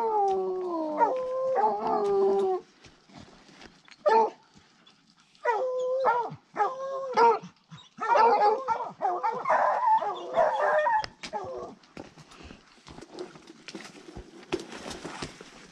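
Lion hounds baying: a long drawn-out bay falling in pitch, then a single short bay, three more in quick succession, and a denser run of bays that stops about twelve seconds in. A brief rustle of brush comes near the end.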